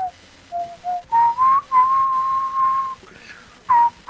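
A person whistling a tune close to the microphone: a few short low notes, then rising notes and a long held note about a second and a half in, then a short falling note near the end.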